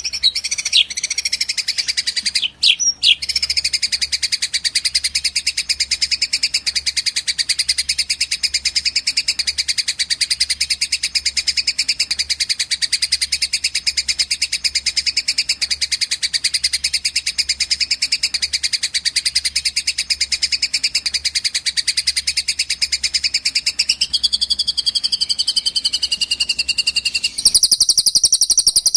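Recorded songbird calls for bird-song training, a fighting Eurasian tree sparrow and a cililin's long song: a long, unbroken, rapid high trill with a brief break about three seconds in. About a second and a half before the end it switches to a different, higher trill.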